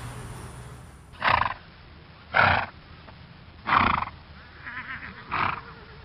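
Horses calling: four short, loud calls about a second apart, with fainter calls between the last two.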